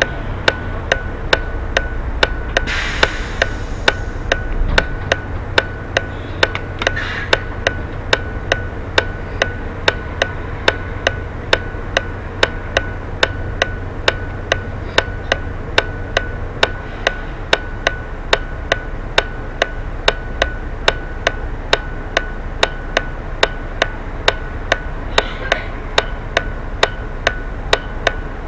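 Bus turn-signal indicator ticking steadily, a little over two ticks a second, while the bus idles at a standstill with a low engine hum. A short hiss comes about three seconds in.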